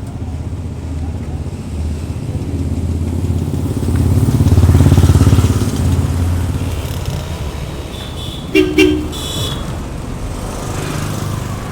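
A road vehicle's engine grows louder and fades as it passes, then a horn gives two quick short beeps.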